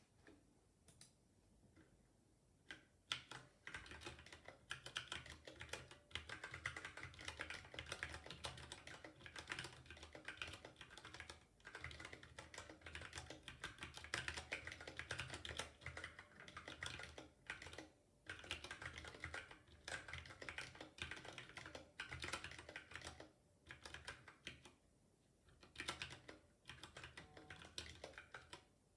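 Typing on a ZSA Moonlander keyboard with tactile Cherry MX Brown switches, unlubricated and without rubber O-rings: a few scattered key clicks, then fast continuous typing from about three seconds in, broken by a few short pauses.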